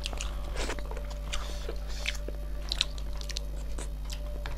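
Close-up eating sounds of snail curry being chewed: irregular small clicks, crunches and wet mouth noises.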